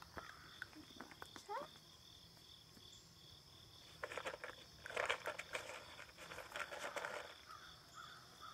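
Insects chirping in a steady, evenly pulsing high chorus, with bursts of rustling and clicks from the puppies scuffling on the ground about halfway through.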